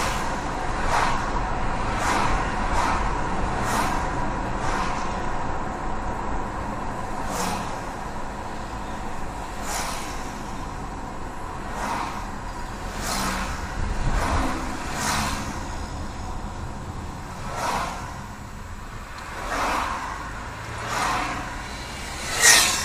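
A car driving through town, heard from inside the cabin: steady engine and tyre noise, with oncoming vehicles swishing past every second or two. The loudest pass comes near the end.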